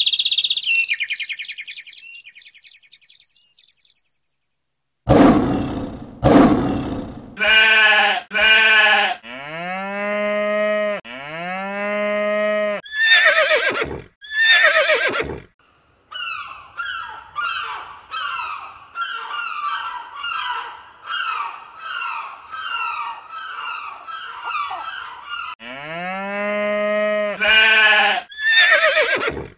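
A string of animal call sound effects: a fading high chirping at first, then sharp knocks, long calls that rise in pitch and then hold, and a long run of quick short calls at about two a second.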